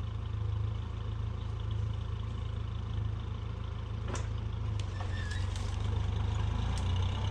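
A work machine's engine running steadily at low speed, with a few light knocks and clicks about four to six seconds in.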